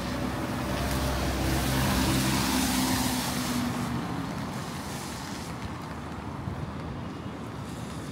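A car engine running close by for the first few seconds, then fading away, over the steady hiss of a wet city street in light rain.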